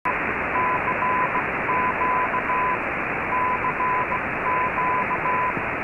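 Weak, noisy shortwave AM broadcast from Radio Havana Cuba on 15140 kHz, received on an Icom IC-R8600: a steady rush of static with a single tone keyed on and off in short and long beeps, like a Morse code call.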